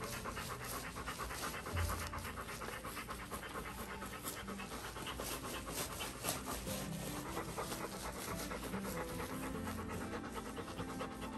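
Siberian husky panting quickly and steadily in an even rhythm.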